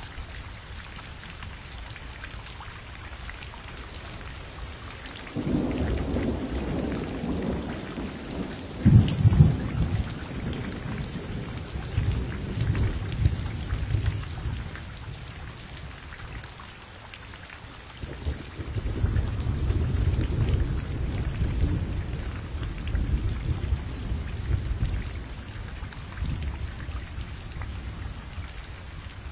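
Steady rain with two rolls of thunder: a low rumble builds about five seconds in, with a sharp loud crack near nine seconds, and a second long rumble rolls through the second half.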